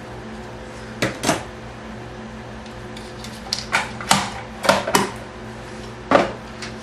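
Scattered sharp clicks and knocks, about eight in all, of small tools and parts being handled and set down on a workbench, over a steady low electrical hum.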